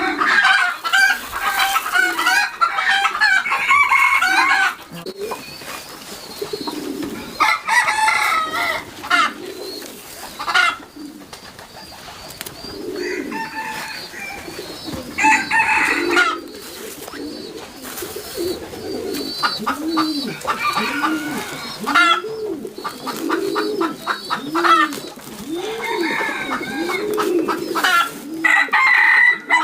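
Farmyard poultry calling: chickens clucking and crowing in several bouts, with pigeons cooing. In the second half there is a steady run of low coos that rise and fall, about one a second.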